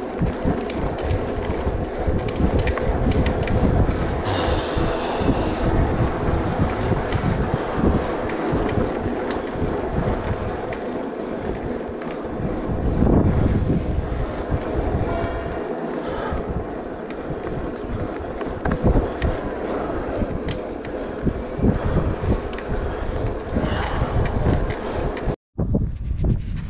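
E-bike climbing a steep path: wind rushing on the microphone over the rumble of the tyres, with frequent small knocks from bumps and a faint steady hum. The sound drops out briefly near the end.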